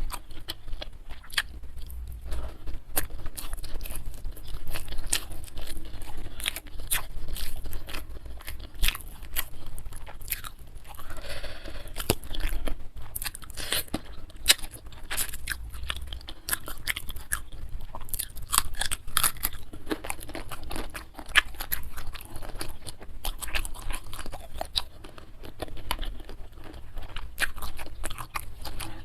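Close-miked chewing of food, with dense, irregular crunchy bites and wet mouth sounds.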